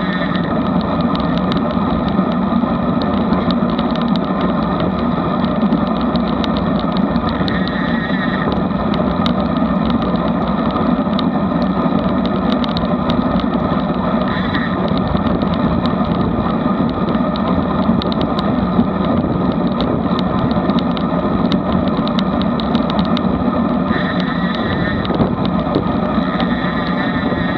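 Steady rush of wind on the microphone mixed with road-bike tyre noise, riding at about 22 to 24 mph.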